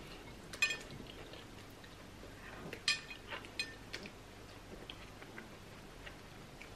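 Close-up eating sounds of pounded yam and slimy okra soup eaten by hand: wet mouth clicks and smacks while chewing. Two are louder, about half a second in and near three seconds, and a few fainter clicks follow the second.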